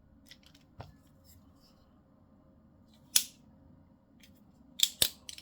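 Demko AD20i folding knife worked open and shut by hand to test its freshly adjusted, lubricated pivot: a few faint clicks, one sharp snap about three seconds in, and two more snaps near the end as the blade swings and locks.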